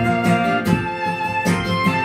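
Acoustic guitar strumming chords with a violin playing a sustained melody over it, an instrumental passage with no singing.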